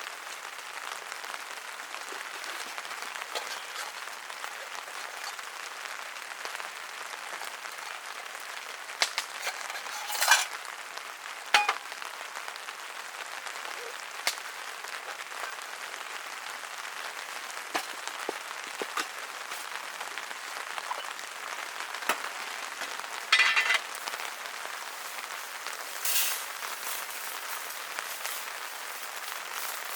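Steady rain pattering on tent fabric, an even hiss, with a few sharp clinks and knocks of camp gear.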